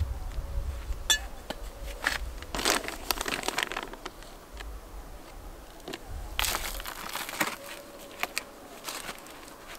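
Plastic sack of potting substrate crinkling and rustling as gloved hands scoop soil out of it and drop it onto cardboard: irregular crackles and scrapes, heaviest a couple of seconds in and again past the middle.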